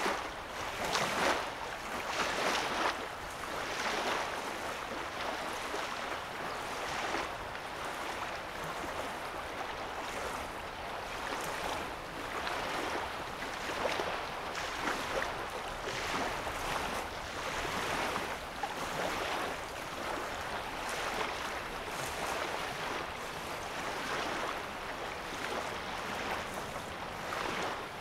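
Small waves lapping on a lake's sandy shore, a soft wash of water that swells every second or two, a little stronger in the first few seconds.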